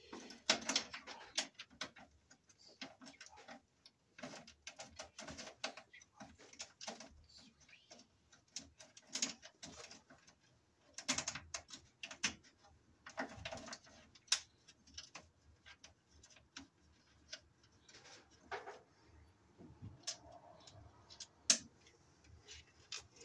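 Irregular metal clicks, taps and scrapes from hand work at the top of a steel breaker panel, opening a knockout and handling cable. The clicks come in louder clusters, with one sharp click near the end.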